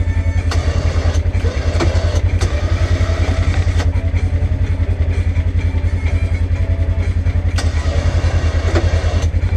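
Polaris General XP side-by-side's engine running steadily with a fast, pulsing low rumble while plowing snow. Several sharp knocks and clicks sound over it at irregular intervals.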